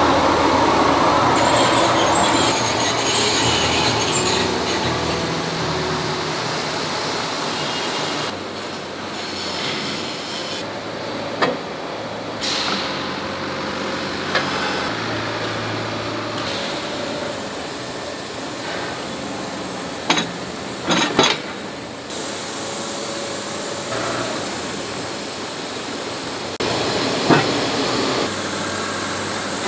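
Forging-shop noise: a loud, steady rush from the billet-heating furnace that eases after about eight seconds into a lower, steady machinery hum, broken by a few sharp metal clanks around the middle and near the end.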